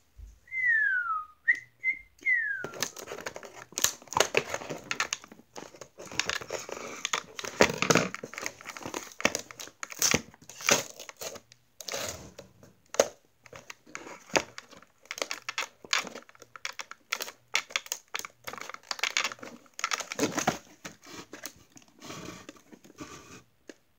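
A short whistled phrase, one falling note then a few quick higher ones, then a long stretch of crinkling, tearing and scraping as a doll's cardboard-and-plastic box packaging is worked open by hand.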